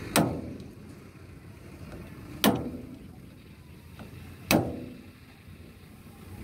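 Three hammer blows on a steel fitting at the chain-sprocket drive shaft of a Kubota DC60 combine harvester, about two seconds apart, each ringing briefly: a field repair of the broken-down machine.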